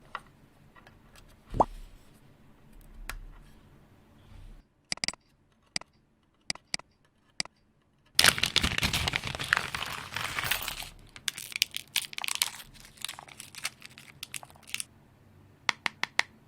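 Plastic packaging crinkling and being torn open, with scattered small clicks of keyboard parts being handled. The crinkling is loudest for a few seconds just past the middle.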